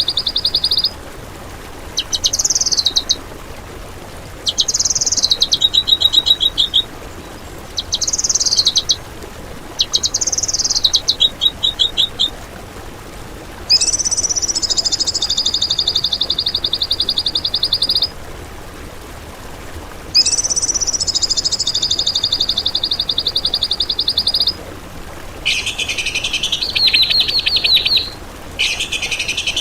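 Songbird singing loud, high-pitched phrases of fast trills and rattles, each phrase one to four seconds long with short pauses between.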